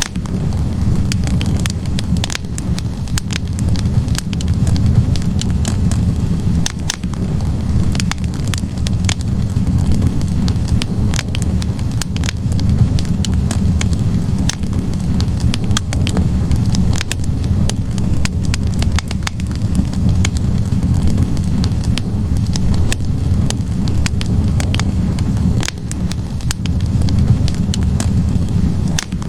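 Wood fire of burning logs in a fireplace, with a steady low rush of flames and frequent, irregular sharp crackles and pops.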